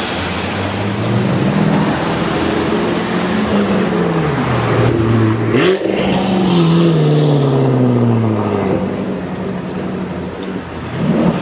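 A performance car driving past: its engine note climbs as it approaches, then drops and fades after it passes about six seconds in.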